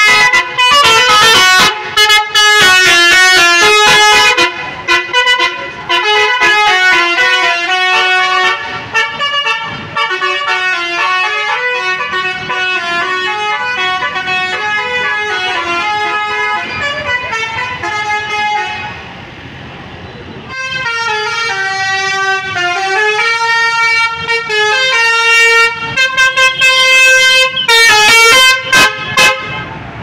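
Tour bus basuri telolet horns playing tunes in quick stepping notes, loud, with a short break about two-thirds of the way through before the tune starts again.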